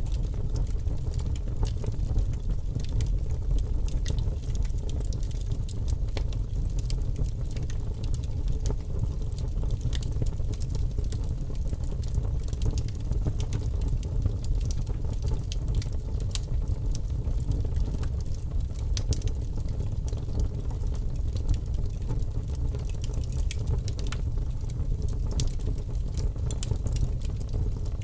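Wood fire burning with large flames: a steady low rumble of flame with frequent sharp crackles and pops from the burning wood.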